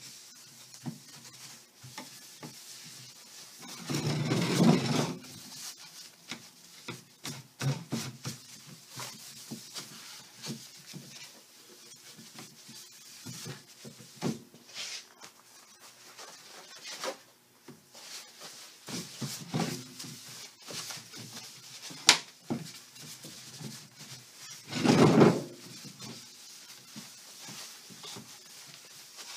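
Cloth rag rubbing over a wooden chair frame, wiping off the excess mahogany oil-stain glaze before it dries, with scattered light knocks and clicks. Two louder noisy stretches of about a second and a half each stand out, about four seconds in and near the end, and there is one sharp click about three-quarters of the way through.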